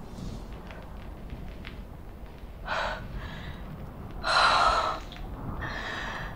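A girl gasping for breath: three sharp, breathy gasps, about three, four and a half and six seconds in, the middle one loudest.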